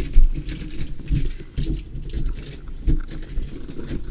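Camera handling noise: irregular rustling and scraping with dull low thumps as the camera brushes and knocks against house siding.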